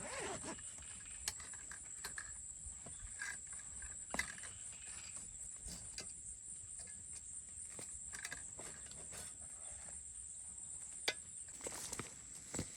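Scattered light knocks, clicks and rustles of hands-on work, a few sharper ones among them, over a steady high-pitched insect drone.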